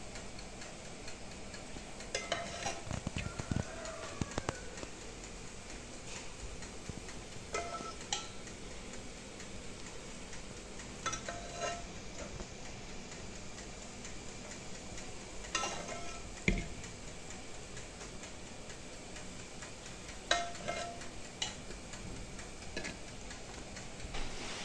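A metal spoon clinking and tapping against a metal baking tray as syrup is spooned over baked pakhlava: short, lightly ringing clicks in small groups every few seconds, over a steady faint hiss.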